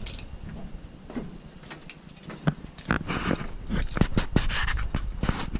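Footsteps: irregular knocks and scuffs of walking, busiest in the second half.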